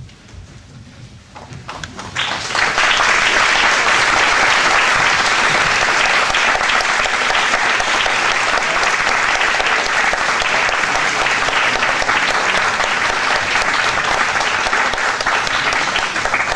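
Audience applauding: quiet at first, the clapping builds in about two seconds in and then holds full and steady.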